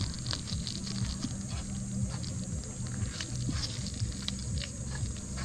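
A hand squeezing and mixing a wet egg-and-flour mash in a nonstick frying pan, with many small clicks and squelches, over a steady high-pitched hiss.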